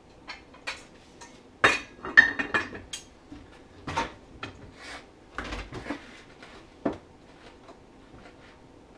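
Metal tools clanking and clinking against a snowmobile drive clutch as a spider removal tool and a long bar are fitted onto it. There is a cluster of sharp clanks a couple of seconds in, then scattered knocks.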